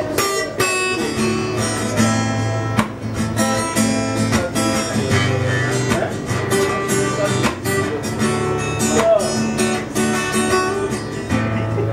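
Takamine acoustic guitar strummed in rhythm, its chords ringing between strokes.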